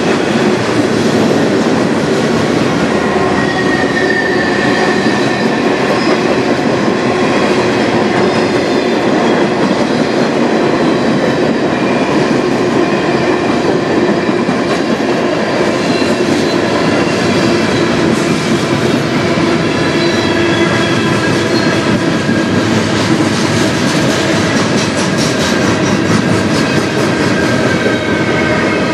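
Freight train cars rolling steadily past, steel wheels clattering over the rails, with thin high squeals from the wheels.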